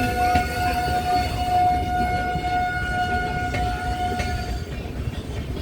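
A train's horn blowing one long steady note for about four and a half seconds, cutting off near the end, over the low rumble of a train rolling into the station.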